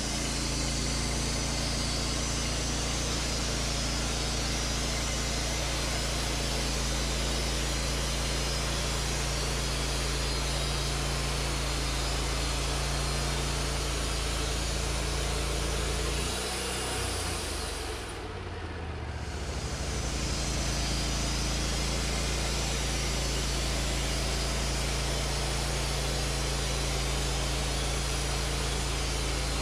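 Wood-Mizer LT40 portable band sawmill sawing an ash log: the engine runs steadily under load while the band blade cuts through the wood. The sound dips briefly about two-thirds of the way through, then carries on as before.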